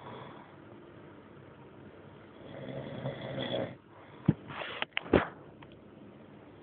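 A man snoring in his sleep, with one drawn-out snore about two and a half seconds in. About a second later come several sharp clicks or knocks, the loudest sounds here.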